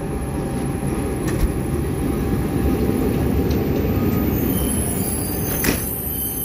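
Passenger train rolling on the rails: a steady low rumble of wheels, with a sharp click about a second and a half in and another near the end.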